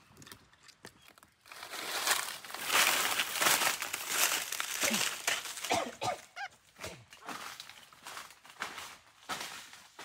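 Dry leaf litter crunching and crackling under a person's footsteps, loudest from about a second and a half in to about six seconds, then fading to scattered crackles. A few short gliding calls sound around the middle.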